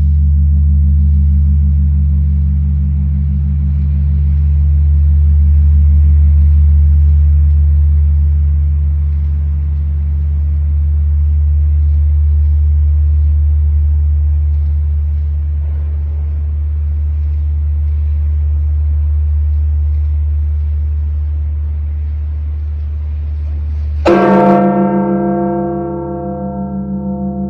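The Campana Mayor, the great bell of Mexico City's Metropolitan Cathedral, tolled slowly in mourning for the Pope's death. The deep hum of one stroke rings on for over twenty seconds. Near the end the bell is struck again: a sharp clang that rings out with many tones and slowly fades.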